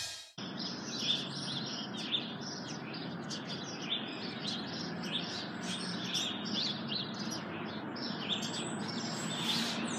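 Birds chirping outdoors: many short, high chirps and tweets, one after another, over a steady background noise.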